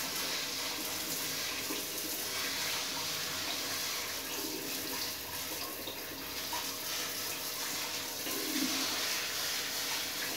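Water spraying steadily from a handheld health-faucet sprayer onto a split AC's plastic mesh air filter and into a ceramic sink basin, the jet's pressure rinsing trapped dust out of the filter.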